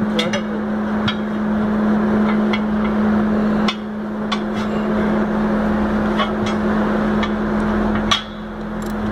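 Steady machine hum under a spread of sharp metallic clicks and taps as tyre levers work the bead of a truck tyre against its steel rim.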